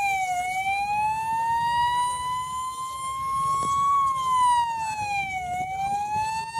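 Fire engine siren wailing: it rises slowly for about three and a half seconds, falls more quickly, then climbs again. A faint low rumble runs underneath.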